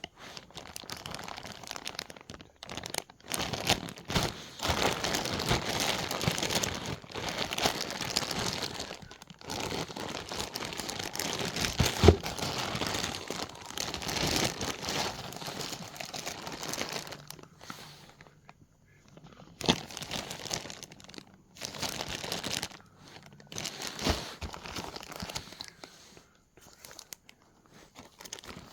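Packaging crinkling and rustling in irregular bursts as the parts of a fuel-conversion kit are handled, with one sharp knock about twelve seconds in.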